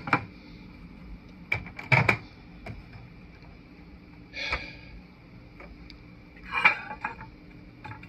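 Microwave oven door clicking and knocking open about two seconds in, then a ceramic mug clattering briefly against the glass turntable twice, over a faint steady high-pitched whine.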